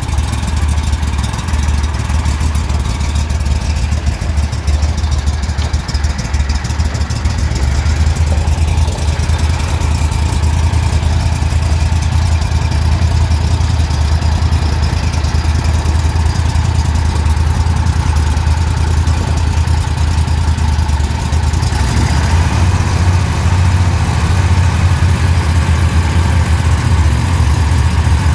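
Twin outboard motors running together, a steady low drone, as the boat is under way. About twenty-two seconds in, the sound gets brighter.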